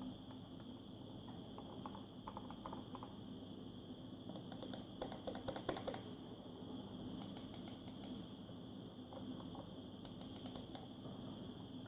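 Short bursts of quick light clicks, four or so bunches, the busiest about halfway, over a faint steady hum.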